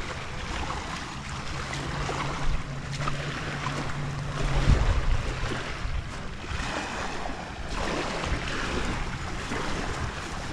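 Wind buffeting the microphone over small waves lapping at a shallow beach. A low steady hum runs through the first few seconds, and a single low thump comes about halfway.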